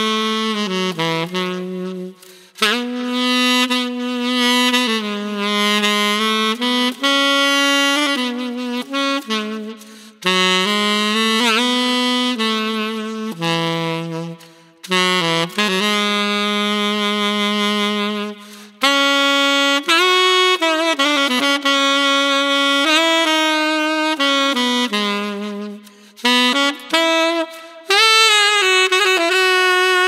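Tenor saxophone played solo: a melodic line of held notes with pitch bends and vibrato, broken by short breath pauses every few seconds. Recorded close on a Lauten Audio LA-220 FET microphone.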